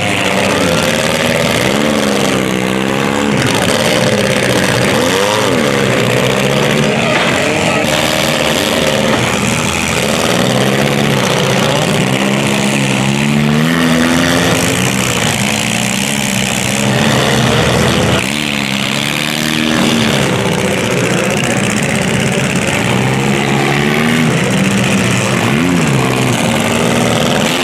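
Engines of several compact demolition-derby cars revving hard, overlapping, their pitch rising and falling again and again.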